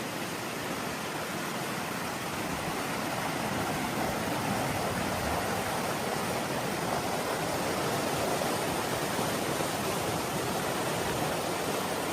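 Steady rain falling, an even hiss of drops with no single impacts standing out, swelling slightly in the middle.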